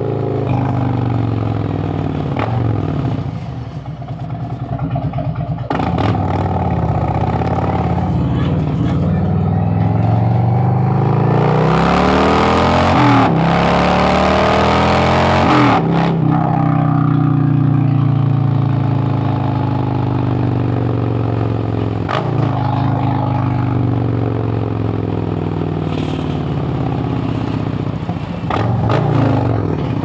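2017 Harley-Davidson Road Glide Special's Milwaukee-Eight V-twin pulling through the gears on the road. Its pitch climbs and drops at each shift, hardest and loudest about twelve to sixteen seconds in, then falls away as the bike rolls off the throttle and picks up again near the end.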